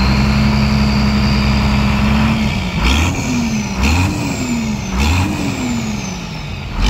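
Hino FM 260 truck's six-cylinder turbodiesel held at raised revs, then blipped four times about a second apart. Each blip rises and drops back, and a high whistle falls away after it.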